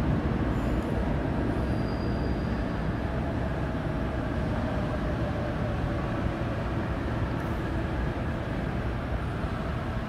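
Seoul Line 8 subway train standing in an underground station, with a steady low rumble and hum from the train.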